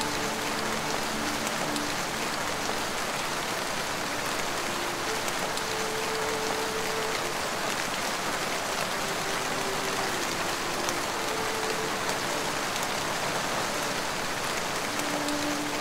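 Steady rain falling, with faint slow held notes of soft ambient music drifting over it.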